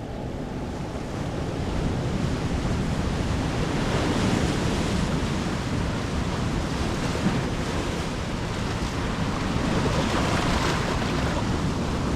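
Ocean surf washing onto the shore, a steady rush that swells as waves break about four seconds in and again near ten seconds, with wind rumbling on the microphone.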